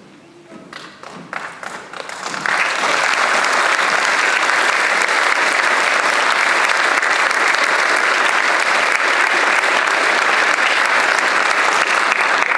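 Audience applauding: a few scattered claps build within about two seconds into full, steady applause.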